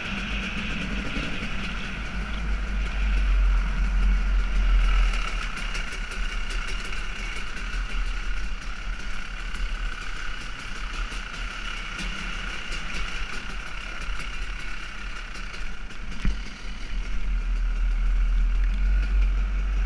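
KTM 300 XC two-stroke single-cylinder enduro bike running as it is ridden, heard from the rider's helmet, with its engine note swelling and easing and a deep rumble underneath.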